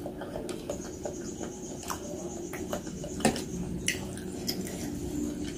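Close-miked chewing of noodles and meatballs (bakso): wet, squishy mouth sounds with scattered short clicks, the sharpest about three seconds in.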